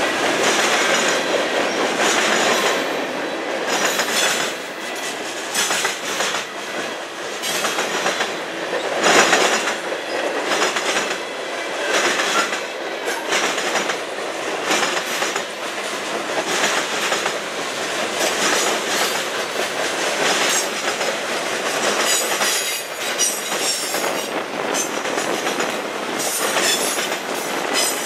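Freight train cars (covered hoppers, lumber flatcars, boxcars) rolling past at speed: a steady rumble of steel wheels on rail with irregular clickety-clack over the rail joints. There is a faint high wheel squeal at times.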